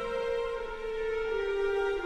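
Background music: a slow melody of long held notes, stepping down in pitch near the end.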